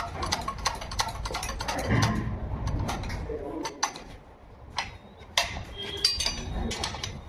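Irregular sharp clicks and knocks, several a second, thinning out about halfway, with a brief high chirping about six seconds in.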